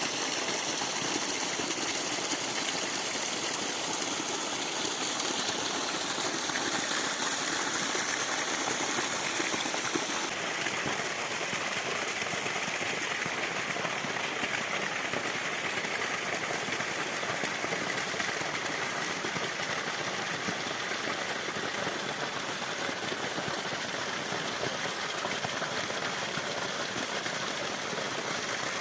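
Small waterfall, about five metres high, pouring with a steady rush of falling water.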